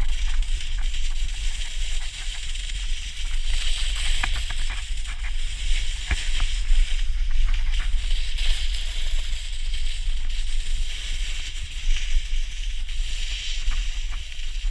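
Snowboard sliding over packed snow while being towed up a drag lift: a steady scraping hiss over a low rumble, with occasional short clicks and knocks.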